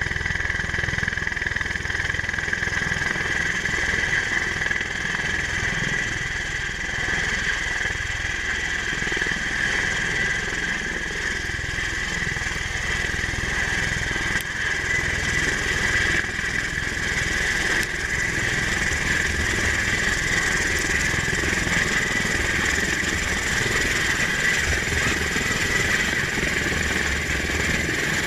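V-22 Osprey tiltrotor's turboshaft engines and rotors running steadily: a constant high whine over a wide rumbling rush that neither rises nor falls.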